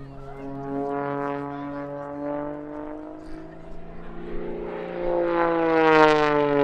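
Extra 330SC aerobatic aircraft's propeller engine droning in flight, its pitch wavering. It swells louder and higher, peaks about six seconds in, then begins to drop in pitch as the aircraft passes.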